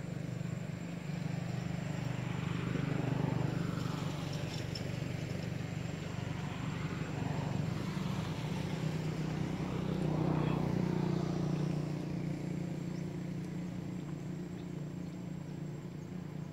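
Motor vehicles passing: a steady engine hum that swells and fades, loudest about three seconds in and again around ten seconds in.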